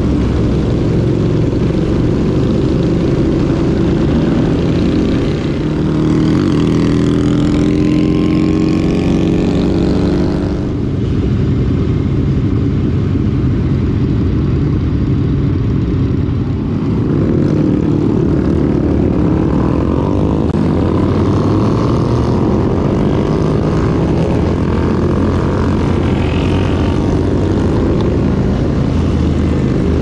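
Suzuki SV650's V-twin engine running under way, with steady wind rush over the microphone. The engine note climbs from about six seconds in, drops off sharply a little before eleven seconds, and rises again around seventeen seconds.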